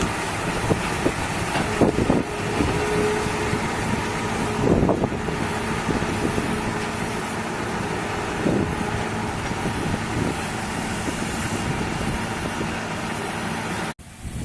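New Holland CX8070 combine harvester running steadily, its engine and threshing machinery making a dense mechanical drone with a few short knocks, cutting off abruptly near the end.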